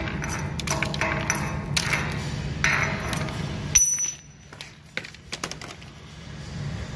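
Sharp metallic taps and clinks with a ringing ping as slag is knocked off a fresh fillet weld bead with a hand tool, over a steady low hum. The tapping and hum stop abruptly a little before four seconds in, after one louder strike, leaving only a few faint clicks.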